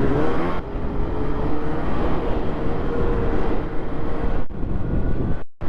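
Snowmobile engine running at speed along a packed trail, a steady engine whine over the rumble of the track and wind. The sound cuts out briefly near the end.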